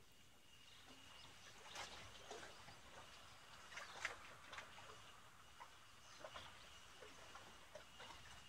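Near silence, broken by faint scattered clicks and ticks at uneven intervals, the strongest about four seconds in, over a faint steady high tone.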